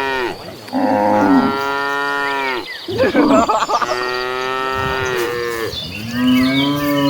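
Cattle in a herd mooing: about four long, drawn-out moos one after another, some overlapping.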